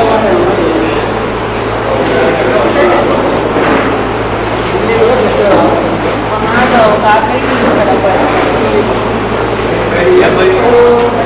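Murmur of many overlapping voices in a crowded hall, under a steady high-pitched whine and a low hum.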